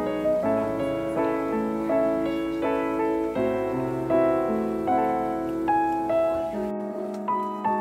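Background piano music, a gentle melody of evenly spaced notes about twice a second.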